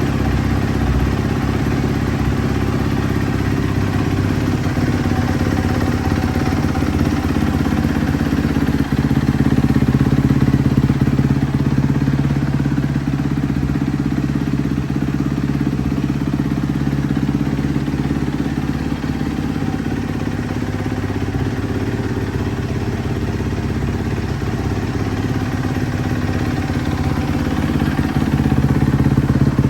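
2015 Kawasaki KX250F's single-cylinder four-stroke engine idling steadily through its stock exhaust.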